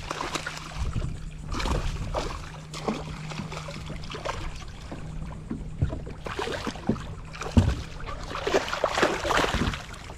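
A small snook thrashing at the water's surface as it is reeled up beside the boat: irregular splashing throughout, loudest in the second half, with a steady low hum under the first half that stops about six seconds in.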